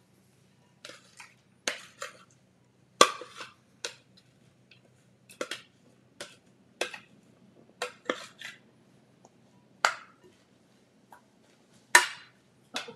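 Plastic food processor bowl and utensils clattering as chopped vegetables are scraped out into a mixing bowl: a dozen or so sharp knocks and clicks at irregular intervals, the loudest about three seconds in and near the end.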